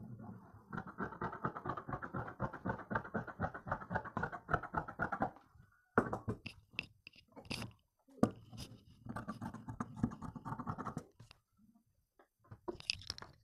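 Scissors cutting through folded dress fabric: runs of rapid crunching snips, a few sharp clicks between them.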